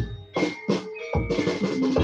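Gamelan music: struck metal keys and gongs ringing on, with sharp strokes several times a second and a deep drum thud about a second in.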